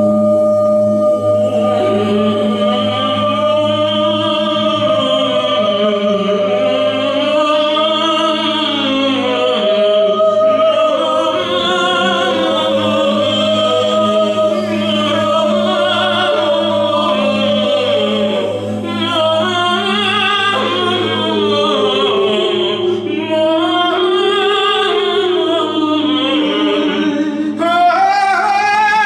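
Wordless improvised singing by male and female voices, with long wavering, gliding tones over a steady low drone.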